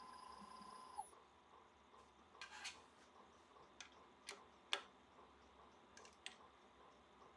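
Near silence: a faint steady high whine cuts off about a second in, then a handful of light, sharp clicks and taps.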